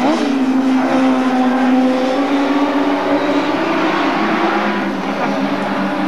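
Group 5 BMW racing car engine running at high revs, its pitch sweeping up at the start and then holding a steady note, with a second engine note layered beneath.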